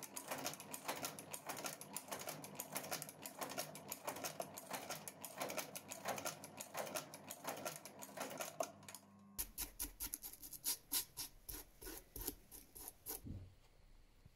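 Blake stitching machine sewing a new rubber sole to a leather shoe, its needle stroking in a fast, even clatter. The clicking breaks off briefly at a cut about nine seconds in, goes on, and stops about a second before the end.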